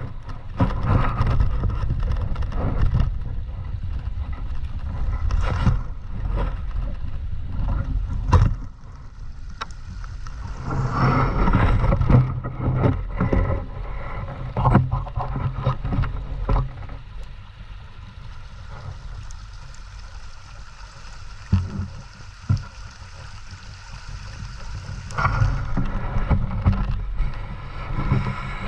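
River water flowing with a steady low rumble, broken by scattered knocks and clicks.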